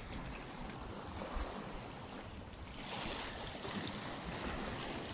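Small waves washing against breakwater rocks, with wind rumbling on the microphone; the wash swells a little about three seconds in.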